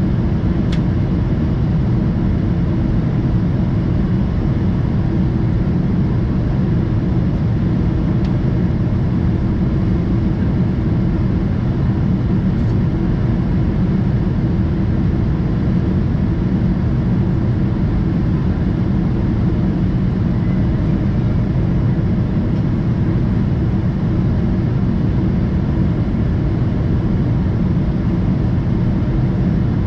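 Steady cabin noise of a Boeing 777-200ER in flight, heard from a window seat just ahead of the wing. It is a constant low rush of airflow and its Rolls-Royce Trent engines, with a faint steady hum above it.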